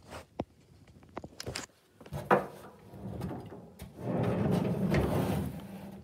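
A few light clicks and a sharp knock, then from about four seconds in a loud rumbling slide: a wooden sliding closet door being moved along its track.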